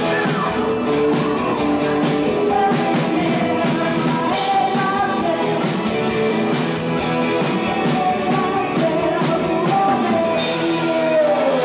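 Live rock band playing a song: a woman sings over electric guitar and a steady drum beat.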